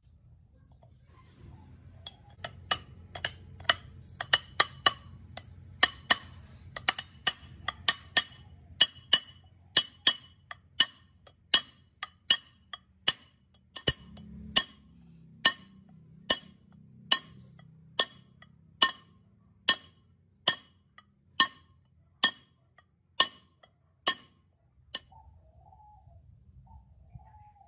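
Repeated hammer blows on a metal pipe used as a drift, driving a ball bearing into its bore in a steel speed-reducer gearbox housing: sharp metallic taps with a ringing clink. The taps come quick and uneven at first, then settle to a steady beat of under two a second, and stop near the end.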